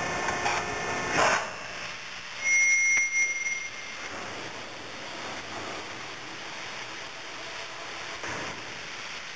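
Rotary coal car dumper machinery running, with a loud bang about a second in. A single high warning beep follows, lasting about a second, and then a steady rushing noise.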